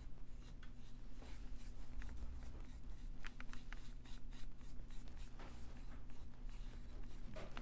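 Small paintbrush working white paint onto the edge of a laser-cut wooden piece: faint, irregular scratchy strokes and light taps, over a steady low hum.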